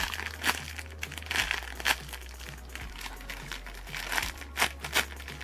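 Plastic packaging on homemade foam squishies crinkling in short crackles as they are handled and squeezed.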